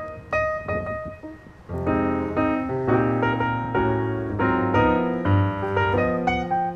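Background piano music: single notes, then fuller chords from about two seconds in.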